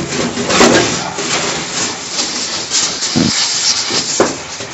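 Palms rubbing and rolling dampened couscous semolina across a tray, a gritty swishing stroke after stroke, with two duller knocks in the second half. This is the semolina being worked into the coarse grains of berkoukes.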